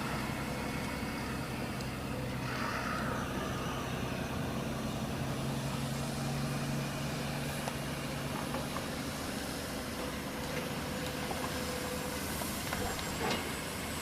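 Heavy diesel construction machinery running with a steady engine drone that fades about two-thirds of the way through. There is a brief hiss about two and a half seconds in and a sharp knock near the end.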